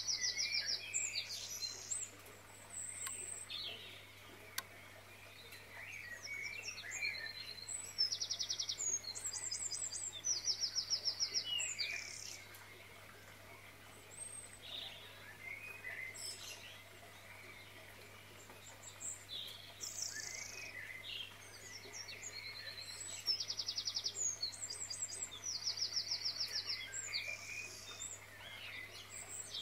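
Songbirds chirping and singing, with clusters of rapid high trills that come back every several seconds between quieter stretches of scattered chirps.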